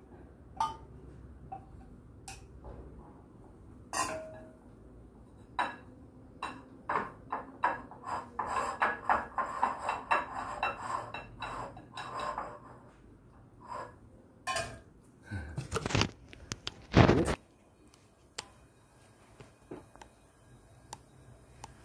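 Metal spatula clinking and scraping against a small steel bowl and a ceramic plate as fried rice is packed and plated: scattered knocks, a quick run of taps in the middle, and a louder clatter near the end.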